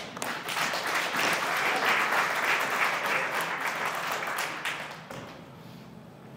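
Audience applauding, with the clapping dying away about five seconds in.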